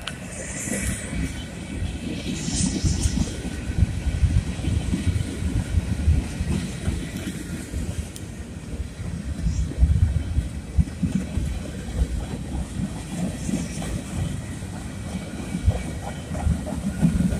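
Freight train's gondola and box cars rolling past close by: a steady rumble of steel wheels on the rails with uneven knocks and thumps as the cars go over the rail joints.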